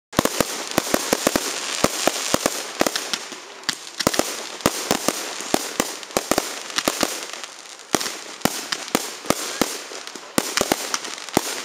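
Fireworks display: rapid, irregular bangs, several a second, over a steady hiss, with a short lull about eight seconds in.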